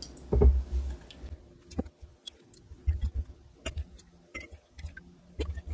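Light, irregular clicks and knocks of a small silicone ladle against glass canning jars and a glass mixing bowl as sauce is ladled into each jar.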